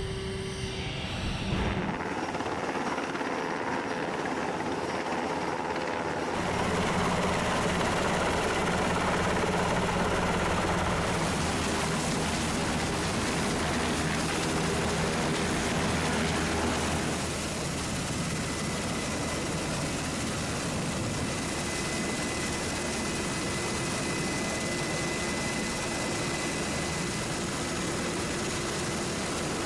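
Helicopter turbine and rotor noise, a steady dense roar that changes abruptly in character a few times.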